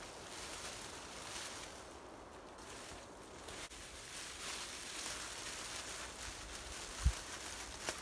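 Clear plastic sheeting faintly rustling and crinkling as it is rolled onto a wooden pole and lifted. A brief dull low thump about seven seconds in.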